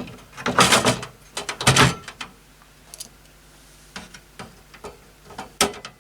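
Scraping and knocking of a graphics card being fitted into a computer case: two louder scrapes in the first two seconds, then a few light clicks as it is seated.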